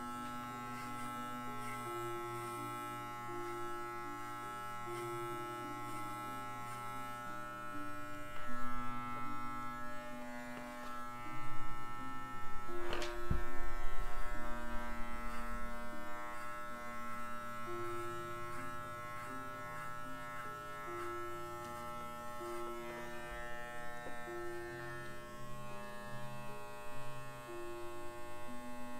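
Electric dog grooming clippers buzzing steadily while trimming a Miniature Schnauzer's head fur. The buzz grows louder and uneven for several seconds around the middle, with one sharp click about halfway through.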